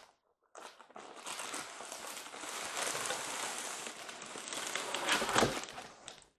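A plastic-wrapped cardboard product box being slid out of a cardboard shipping carton: continuous rustling and scraping of cardboard and plastic, loudest about five seconds in.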